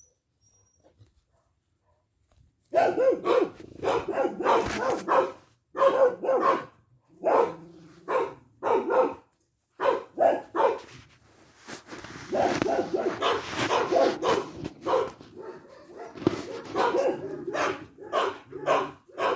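A dog barking repeatedly, starting about three seconds in, with a mix of short sharp barks and longer, drawn-out runs of barking.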